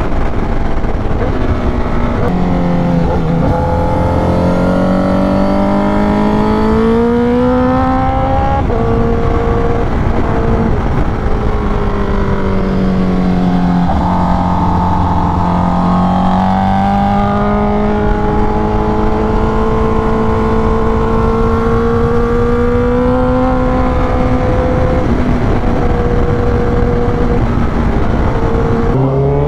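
Honda CBR1000RR-R Fireblade SP inline-four engine through an SC Project exhaust, ridden under load. The engine note climbs steadily in pitch in long pulls, dropping back at each gear change, about a third of the way in and again near the end.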